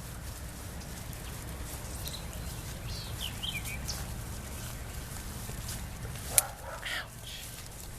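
A few short bird chirps over a steady low wind rumble, with a sharp click and a brief animal call about six and a half seconds in.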